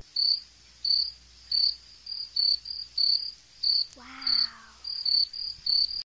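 Crickets chirping, short high chirps about two a second, some in quick runs. About four seconds in, a brief voice sound falls in pitch.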